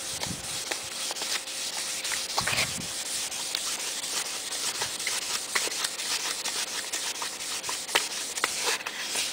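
320-grit sandpaper rubbed by hand along a wooden rifle stock in quick back-and-forth strokes, a steady scratchy hiss. This is the final fine-grit sanding that smooths the wood before staining.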